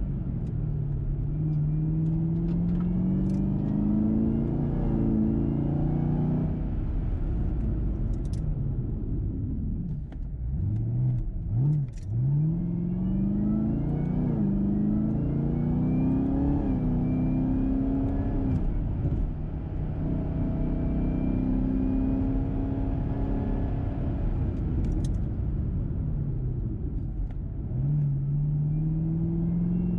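Camaro ZL1 1LE's supercharged 6.2-litre LT4 V8, fitted with a full 3-inch cat-back exhaust, heard from inside the cabin pulling through the gears: the engine pitch climbs, drops suddenly at each shift, and climbs again. About ten seconds in, the revs fall away and then rise quickly twice before settling into another steady climb.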